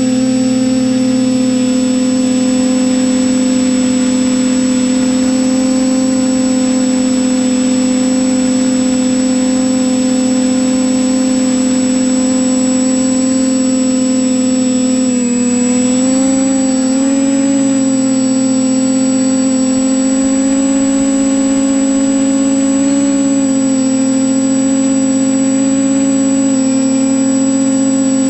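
TBS Discovery Pro quadcopter's electric motors and propellers humming steadily, heard from its onboard camera. The pitch dips and wavers about halfway through as the throttle changes, then settles again.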